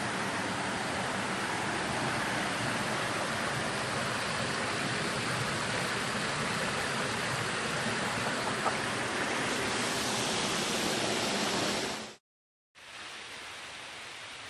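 Steady rushing water of a waterfall. It cuts off suddenly about twelve seconds in and, after a brief silence, comes back as a quieter, steady rush of water.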